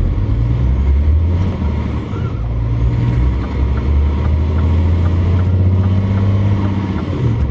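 Lorry's diesel engine running on the road, heard from inside the cab, a steady low drone that shifts in pitch a few times.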